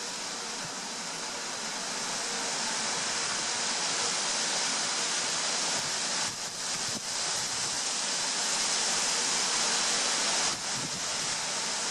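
Strong gusty wind rushing through trees and grass, a steady hiss that slowly builds, with two brief lulls.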